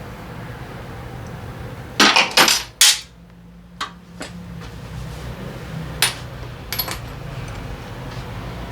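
Metal tools and parts clanking: a quick run of loud clinks about two seconds in, then single clanks near four, six and seven seconds, over a steady low hum.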